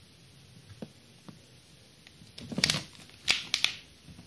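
Hands handling the plastic body and chassis of an RC car: a few light clicks, then two short bursts of scraping and rattling about two and a half and three and a half seconds in.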